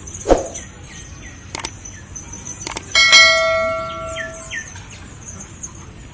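Songbirds chirping, with a constant high twittering behind short repeated calls. A few sharp clicks come through, and about three seconds in a single struck ringing tone sounds and fades over a second and a half.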